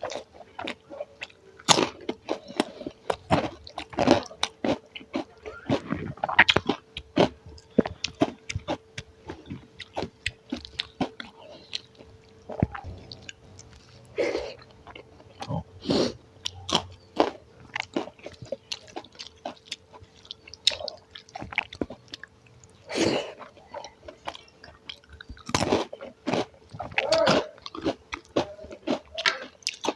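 A person chewing and eating close to the microphone: many short, irregular wet smacks and clicks of mouth and food. A faint steady hum sits underneath.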